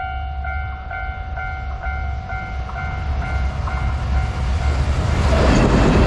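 Japanese level-crossing warning bell ringing a little over twice a second over the low rumble of an approaching freight train hauled by a JR Freight EF210 electric locomotive. About five seconds in, the wagons pass close by, the noise grows louder and the bell is lost under it.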